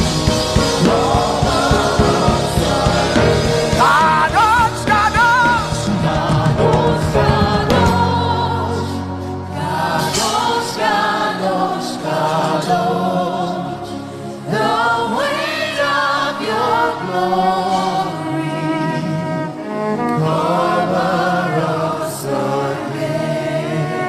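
Gospel worship music: voices singing over a band. The drums and bass drop out about eight seconds in, leaving the singing over softer backing.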